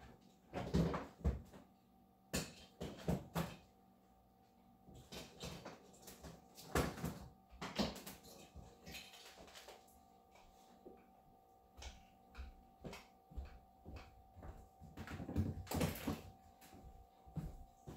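Irregular knocks, thumps and rustling as household items are picked up and moved during tidying, in scattered clusters with quiet gaps, over a faint steady hum.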